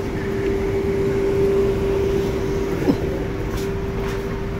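Steady hum of a standing double-deck electric commuter train, its onboard equipment running at the platform, with a short knock about three seconds in.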